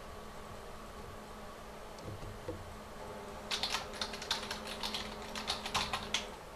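Typing on a computer keyboard: a quick, uneven run of key clicks starting about halfway in and stopping shortly before the end, over a faint steady hum.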